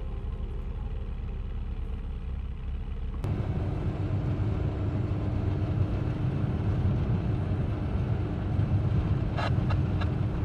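Car driving, with a steady road and engine rumble that gets louder and gains a steady hum about three seconds in.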